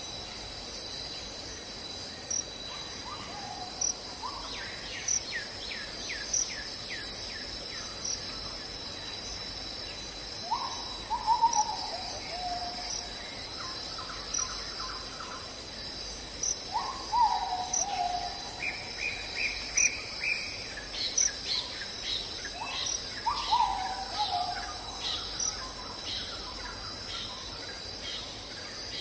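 A steady chorus of crickets, with bird calls over it: a short falling call repeated every six seconds or so, and quick trills of chirps.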